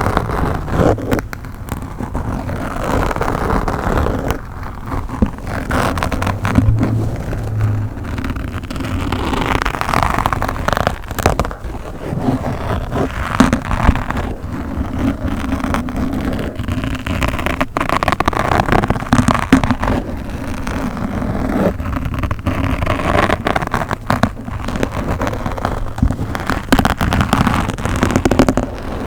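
ASMR microphone scratching: a continuous close-up scratchy rumble on the mic, dense with crackles and pops.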